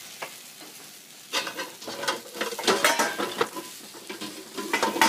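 Metal cookware clattering and knocking as a cooking pot is fetched, in two spells of rapid clanks, over a faint sizzle of onions frying in a pan.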